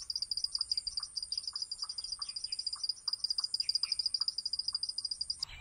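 Insects trilling steadily in fast, even pulses, with a thin high whine above them and faint soft ticks underneath. It cuts off suddenly just before the end.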